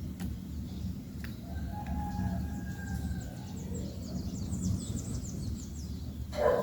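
Wild birds calling: a long thin whistle about two seconds in, then a run of quick high chirps, over a steady low background rumble. A brief louder sound comes near the end.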